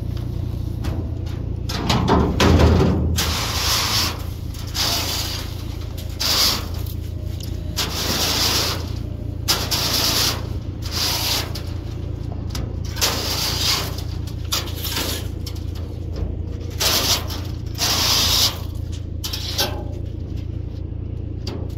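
A leaf rake scraping across the metal floor of a dump trailer, dragging wet leaves, in repeated strokes about one every second or so. A low engine hum runs underneath, and a louder knock comes about two seconds in.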